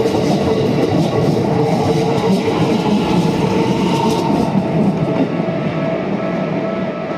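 Keikyu train running past the level crossing, a loud rumble of wheels on rail that eases off over the last couple of seconds as it goes by.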